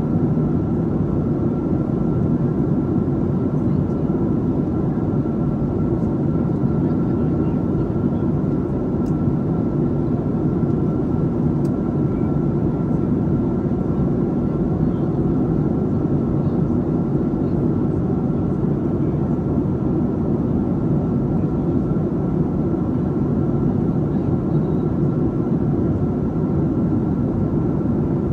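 Steady cabin noise of a Boeing 737-700 on approach: its CFM56-7B engines and the airflow around the fuselage make an even low rumble, with a thin steady whine running over it.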